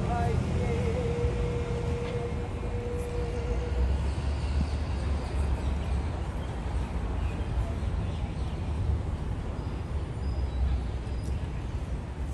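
Outdoor ambience at a gathering, dominated by a steady low rumble. One long held note sounds in the first few seconds.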